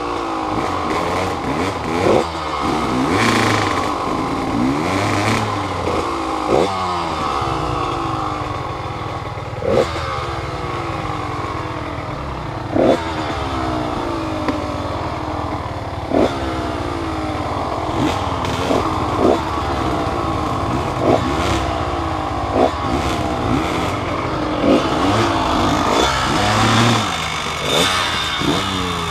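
Vehicle engine revving up and dropping back over and over, about every one to three seconds, with clattering knocks throughout.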